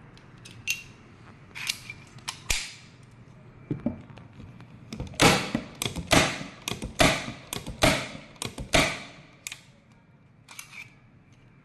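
Unitacker Light Force 6-in-1 heavy-duty aluminum staple gun firing T50 staples: a few lighter clicks, then a run of about eight sharp snaps at roughly two a second in the middle.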